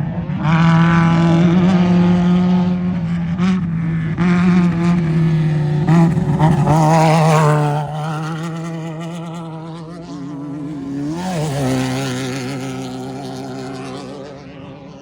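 Off-road race truck engine at high revs going by, loud and steady for the first several seconds, then fading. About eleven seconds in a quieter engine note briefly rises in pitch before dying away.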